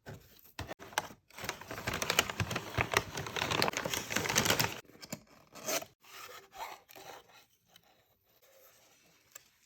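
Packaging being rustled and torn open by hand, a dense stretch of crinkling for about three and a half seconds, then scattered rustles and light taps.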